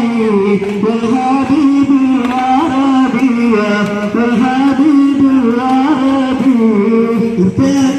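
A solo voice singing an ornamented devotional melody for the Prophet's birthday, over a quick, steady percussion beat.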